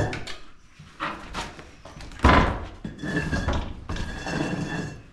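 Old wooden barn door being pulled open: one heavy thud about two seconds in, and the hinges squealing twice in drawn-out creaks as it swings.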